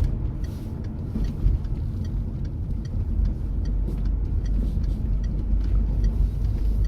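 Car driving on the road, heard from inside the cabin: a steady low rumble of engine and tyres, with a faint regular ticking over it.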